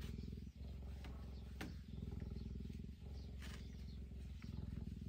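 A cheetah purring: a steady low rumble of fast, even pulses that breaks briefly about every second to second and a half as it switches between breathing in and out.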